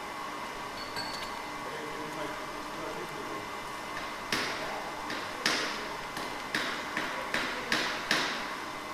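Handheld Grasmaster electrostatic flocking applicator being shaken about eight times in quick succession from about four seconds in. Each shake is a short, sharp hiss as flock fibres are thrown through its fine sieve, and each dies away quickly over a steady background hum.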